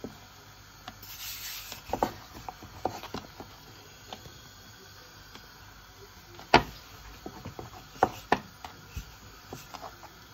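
Scattered knocks and taps of objects being handled in a kitchen, the loudest about six and a half seconds in, with a brief rustle about a second in.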